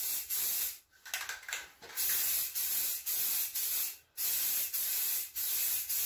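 Aerosol spray can of Rust-Oleum Peel Coat hissing in short passes, each broken off after about half a second. There is a pause of about a second near the start and another brief break about four seconds in.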